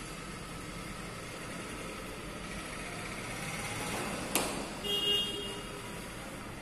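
Chalk writing on a blackboard, with a sharp chalk tap about four seconds in, over steady background noise. A short horn toot sounds about five seconds in.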